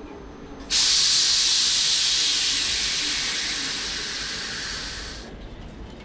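Compressed air hissing out of a passenger train's air brake system. It starts suddenly and loud, then fades slowly for about four and a half seconds before cutting off.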